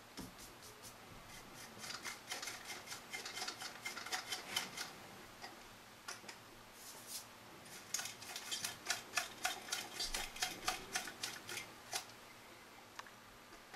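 A flat paintbrush scratching over the plastic body of a model locomotive tender, brushing on an oil-paint weathering wash in quick short strokes. There are two runs of strokes, about four a second, the second starting about eight seconds in.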